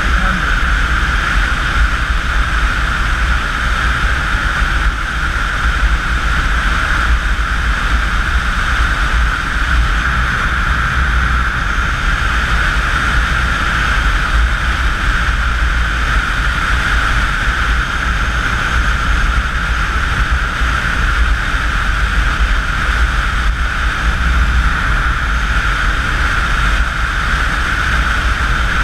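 Steady wind rush into the camera microphone of a motorcycle cruising at highway speed: a deep rumble with a hissing band above it, unchanging, and no clear engine note.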